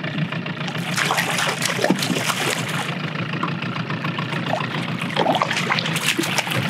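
A large brown trout thrashing and splashing at the water's surface beside the boat, in bursts, with more splashing near the end as the landing net goes into the water. The boat's motor hums steadily underneath.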